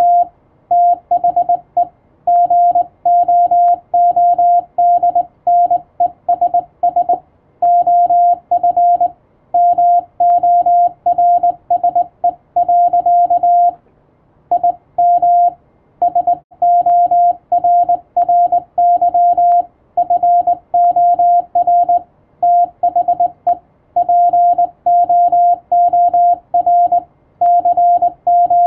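Morse code (CW) sent as a single steady mid-pitched beep keyed on and off in short and long elements, dots and dashes, with brief pauses between characters and words.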